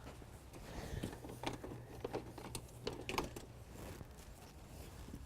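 Scattered light clicks and knocks of a folding canoe's seat fittings and frame parts being handled as the seats are taken out, over a faint steady low hum.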